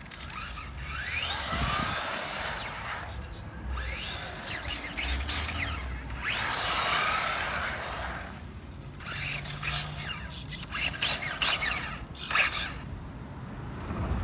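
A 2S LiPo-powered Tamiya electric RC drift car making passes on asphalt. Its motor gives a high whine that sweeps up and down as it speeds up and slows, over a hiss of tyre noise, with two long, loud passes. Near the end comes a quick run of sharp clicks and knocks.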